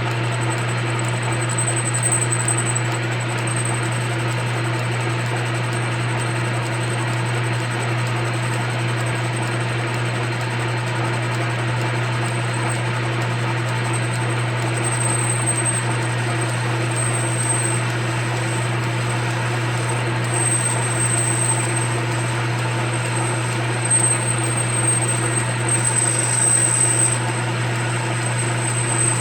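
Metal lathe running steadily while boring out the inside of a metal part, with a steady low motor hum. A thin high-pitched tone comes and goes over it.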